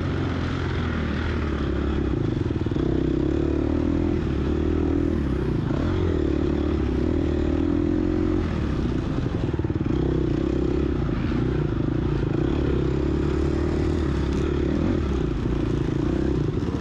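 A 2022 Gas Gas EX250F's 250 cc four-stroke single-cylinder engine running under load while the dirt bike is ridden along a trail, the revs holding fairly steady with small rises and falls.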